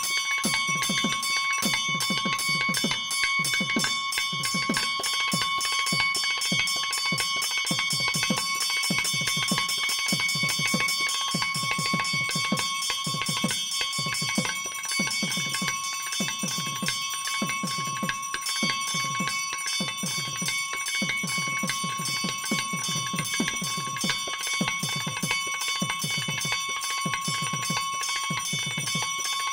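Brass temple hand bell rung continuously during a pooja, a fast, steady ringing with a bright sustained tone. A low regular beat runs underneath it.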